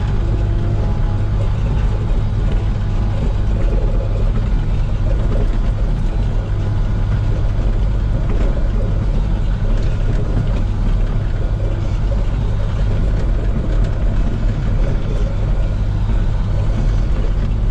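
Komatsu PC16 mini excavator's diesel engine running steadily with a constant low drone.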